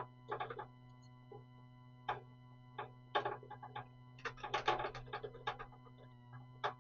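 Irregular light clicks and knocks of computer parts being handled and fitted inside a PC case, coming more often from about three seconds in, over a faint steady hum.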